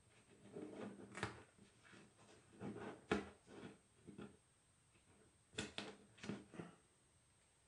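Faint, irregular short scratching strokes with a few light ticks: a tiny clear plastic model-kit part being hand-sanded, the strokes coming in small clusters.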